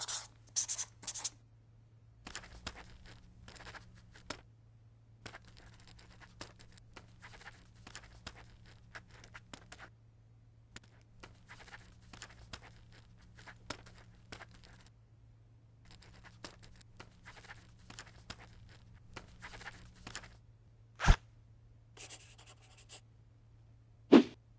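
Pen-on-paper writing sound effect: a few quick scratches, then four stretches of steady scratchy writing a few seconds each with short gaps between, then two sharp clicks near the end. A faint low hum runs underneath.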